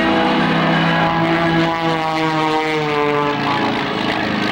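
Aerobatic propeller airplane flying past, its piston engine and propeller droning. The pitch falls in the second half.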